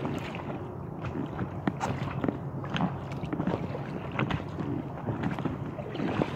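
Small choppy waves lapping and slapping against the inflatable kayak's hull in short, irregular splashes, over steady wind noise on the microphone.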